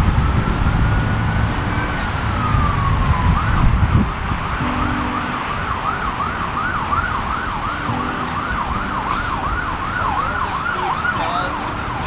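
Emergency vehicle siren: a slow rising and falling wail for the first few seconds, then switching to a fast yelp of about three sweeps a second, stopping near the end. A low rumble of traffic runs underneath.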